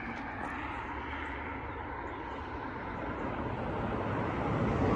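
Approaching freight train: a steady, low rumble that grows gradually louder.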